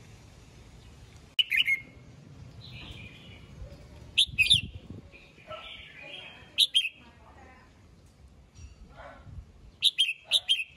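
Red-whiskered bulbul singing: four loud, short bursts of song spaced a few seconds apart, with softer notes between them.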